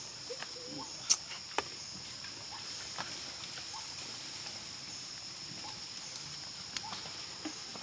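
Steady high insect drone, with a few sharp clicks; the loudest comes about a second in.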